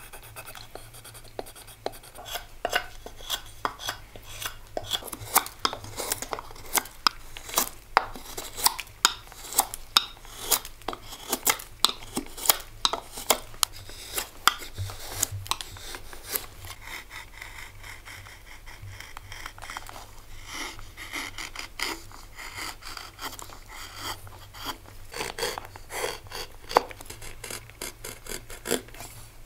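Carving knife slicing into a wooden bowl, a busy run of short, sharp cutting clicks and scrapes as shavings come off. The cuts ease off for a few seconds a little past the middle, then pick up again. A faint steady hum runs underneath.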